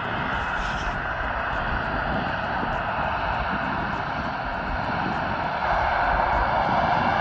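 Jet engines of a Boeing 737-800 taxiing past at low power: a steady rushing engine noise with a low rumble. It grows louder near the end as the engines come closer.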